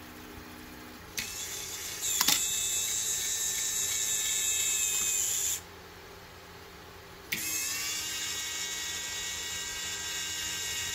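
A 12-volt electric linear actuator runs with a high gear-motor whine for about four seconds as it extends, pushing up and bending the spring-steel PEI build plate to break the printed part free, with a sharp snap about two seconds in. After a pause of about two seconds it starts again with a click and whines for about four seconds as it retracts.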